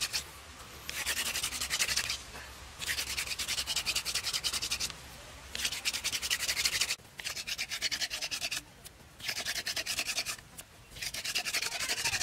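Hand-drill friction fire-lighting: a thin wooden spindle spun between the palms, grinding in the drill hole of a dry wooden hearth branch. It makes a rasping rub in about six bouts of a second or two each, with brief breaks as the hands go back to the top of the spindle.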